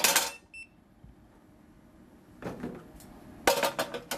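Hard drives clacking against the metal loading hopper of a hard drive destroyer's autoloader as they are set in: sharp clacks at the start, about two and a half seconds in, and again a second later, with a short high beep about half a second in.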